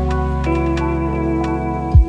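Lo-fi hip hop instrumental music: held chords over a deep steady bass, changing chord about half a second in, with a single drum hit near the end.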